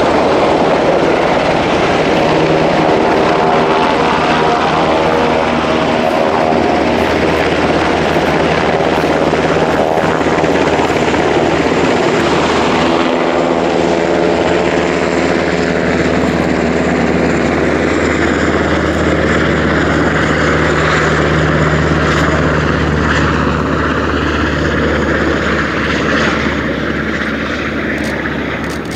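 A UH-60 search-and-rescue helicopter flying past, its rotor and turbine engines running with a pitch that slowly shifts as it moves. A U-125 jet flying over adds a higher jet sound in the second half, and the noise fades near the end as both draw away.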